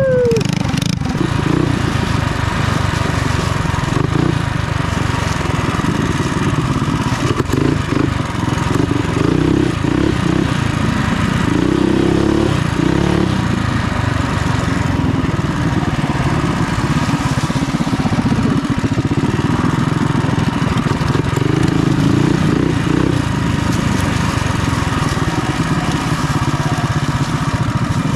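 196cc single-cylinder four-stroke engine of a Coleman B200RSV mini bike running continuously, its speed shifting a little now and then.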